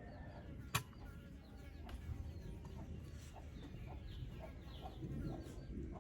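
Chickens clucking faintly in short, repeated calls, with a single sharp knock a little under a second in.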